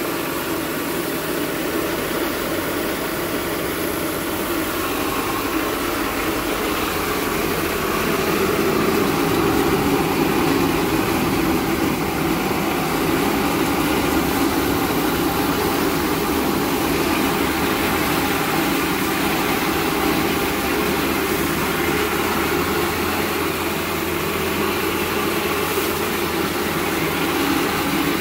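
Small electric rice milling machine running steadily while milling paddy, separating husk from rice: an even, dense mechanical hum.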